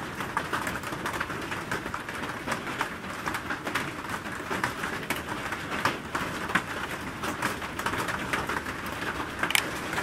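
Rain falling: a steady hiss with many small, irregular ticks of drops hitting nearby surfaces.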